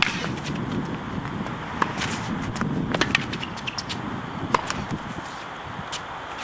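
Tennis rally on a hard court: sharp pops of racket strikes and ball bounces every second or so, with wind rumbling on the microphone.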